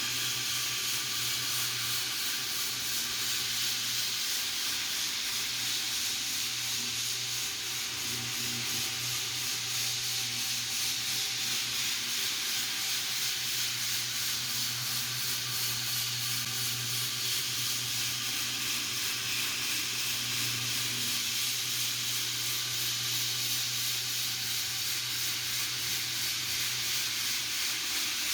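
Power floor sander running steadily on hardwood flooring: a continuous abrasive hiss over a low, even motor hum.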